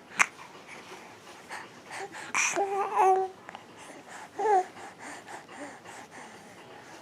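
A sharp click just after the start, then a few short, pitched babbling vocal sounds, the loudest in the middle and a brief gliding one near the end.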